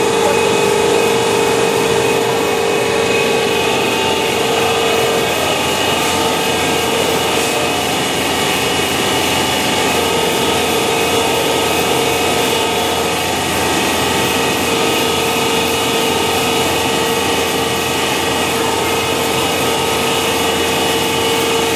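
Drum buffing machine running steadily with a constant motor whine, while the edge of a painted cabinet panel is pressed and rubbed against its spinning wheel.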